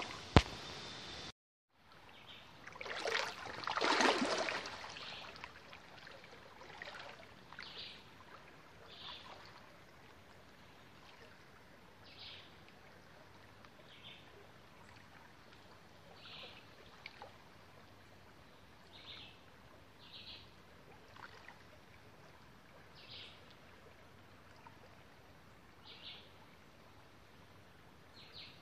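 River water sloshing loudly for about a second and a half, three seconds in, then a quiet steady river background with a bird repeating a short high call every couple of seconds.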